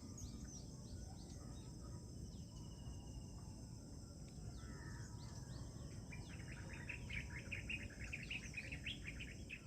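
Faint bird chirps over a steady high insect drone and low background noise; the chirping thickens into a rapid run in the last few seconds.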